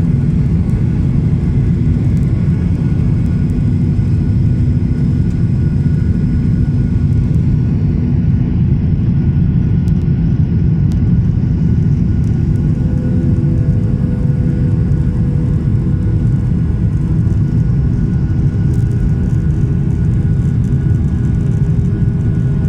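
Aircraft in flight, a steady low engine drone with several steady tones over it; a further tone joins about halfway through.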